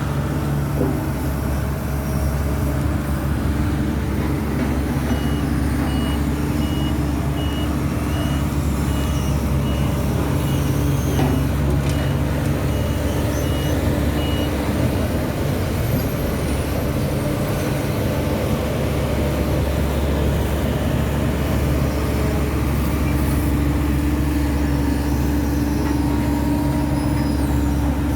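Heavy diesel construction machinery running steadily, a deep engine drone. From about five seconds in, a reversing alarm beeps evenly, about once every 0.7 seconds, for roughly ten seconds, then stops.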